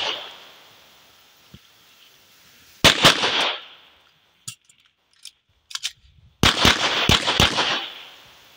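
Semi-automatic pistol fired in quick strings: a pair of shots about three seconds in, a few faint clicks, then a rapid string of about five shots, each string trailed by a long echo.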